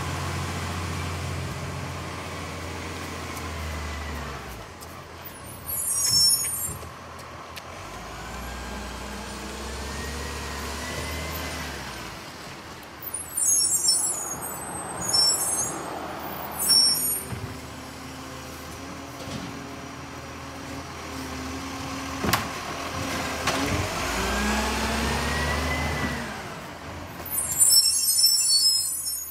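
Diesel garbage truck running as it moves off and stops along the street, its engine pitch rising twice as it pulls away. Short sharp air-brake hisses come at each stop: once about six seconds in, several times mid-way and again near the end.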